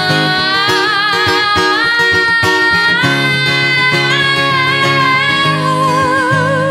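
A woman sings long held notes without clear words, climbing in pitch twice and ending with vibrato, over a strummed acoustic guitar.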